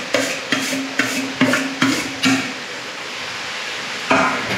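Metal spoon knocking against a steel plate and the steel kadhai about twice a second as mashed potato is tapped off into the pan, each knock ringing briefly. After a pause there is one more knock near the end.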